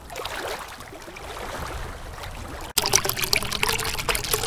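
Moving water trickling and splashing. About two-thirds of the way through it cuts suddenly to a louder, choppier stretch.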